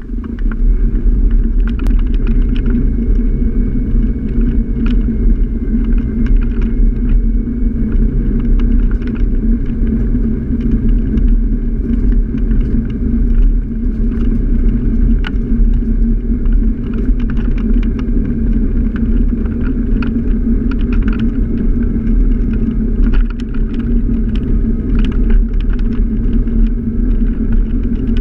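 Scooter in motion on a street, heard from a camera mounted low on it: a loud, steady low rumble of ride vibration, wind and road noise, with a faint thin whine and scattered light clicks.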